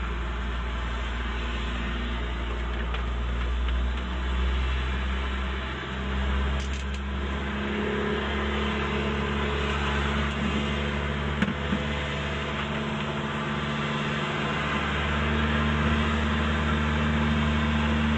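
Steady engine drone with a strong low hum, its pitch shifting a few times in the first half and then holding steady.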